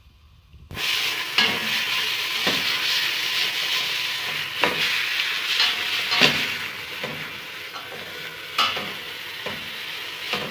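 Raw chicken pieces sizzling in hot oil with onion and garlic in a stainless steel pot, being browned. The sizzling starts suddenly just under a second in, and a wooden spoon stirring the chicken knocks and scrapes against the pot every second or two.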